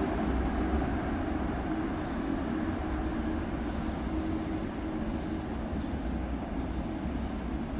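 Coupled Siemens Combino trams running along the track: a steady low rumble of wheels and running gear on the rails, easing slightly after about five seconds.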